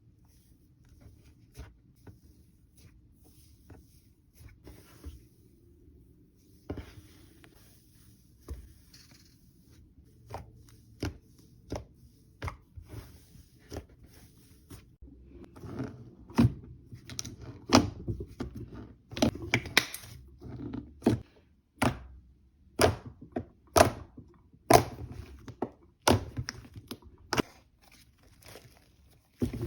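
A blade cutting something crisp, each stroke a sharp crunchy click. The strokes are sparse and soft at first, then louder and more frequent from about halfway, at roughly one to two a second.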